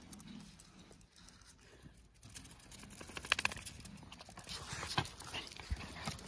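Jack Russell terriers' claws clicking and scuffling on stone-tile paving as the dogs move and jostle, with a quick run of clicks about three seconds in.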